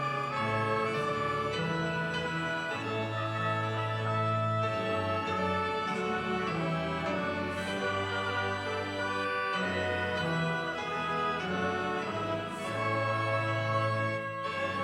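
Church organ playing a hymn: sustained chords over a bass line that moves to a new note every second or two.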